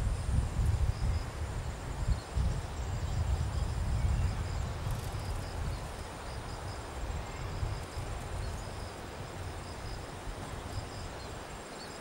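Insects droning steadily in high, thin tones over a fluctuating low rumble of wind on the microphone, which is strongest in the first few seconds and eases off later.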